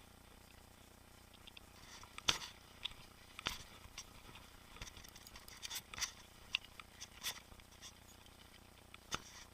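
Boardman mountain bike clicking and knocking over rough trail: irregular sharp knocks and rattles, the loudest about two seconds in and another near the end.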